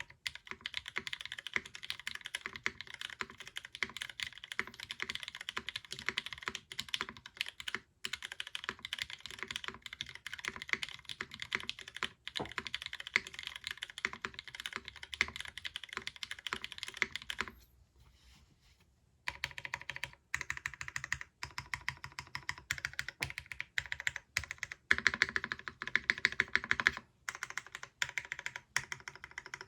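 Fast continuous typing on a mechanical keyboard with retooled Cherry MX Brown tactile switches in an aluminium full plate, GMK keycaps and no foam, giving a slightly hollow clack. The typing stops for a second or two about eighteen seconds in, then resumes with a louder spell near the end.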